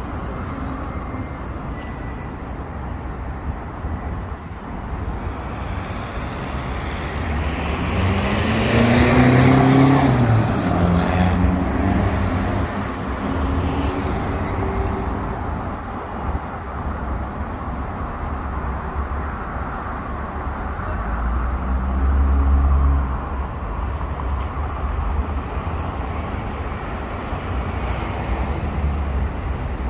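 Steady road traffic on a wide city avenue. A vehicle passes close and loud about nine to eleven seconds in, its engine note changing as it goes by, and a deeper rumble swells and fades about two-thirds of the way through.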